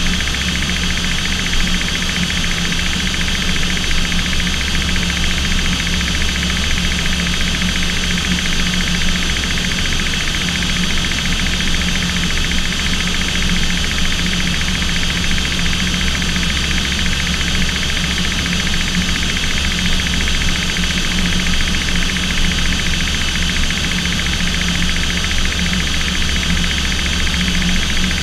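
Aircraft engines heard from inside the cockpit in flight: a loud, unchanging drone with a deep hum and a set of steady higher tones over it.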